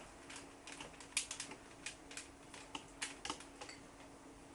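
Frozen berries and a kitchen container being handled: an irregular scatter of light clicks and taps, with a faint steady hum underneath.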